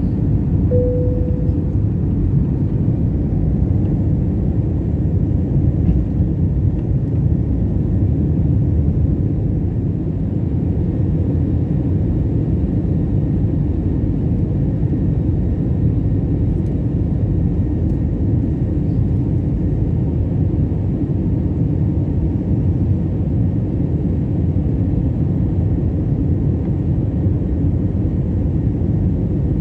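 Jet airliner engines and airflow heard from inside the cabin during the climb after takeoff, a steady low rumble. A brief single tone sounds about a second in.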